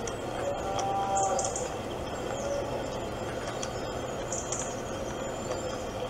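Birdsong from a bird video playing through a smartphone's small speaker: short high chirps about a second in and again past four seconds, over a steady hiss.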